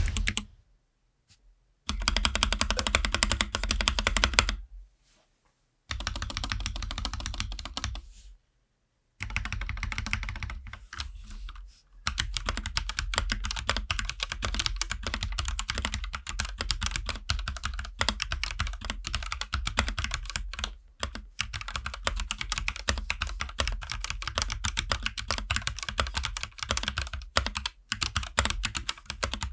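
Typing on the Akko 3068S mechanical keyboard after a four-layer tempest tape mod: fast, dense keystroke clacking. It comes in short runs broken by brief silences over the first twelve seconds, then goes on without a break.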